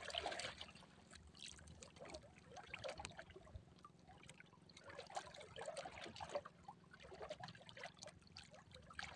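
Faint water lapping and trickling against the hull of a small outrigger boat, with small irregular splashes.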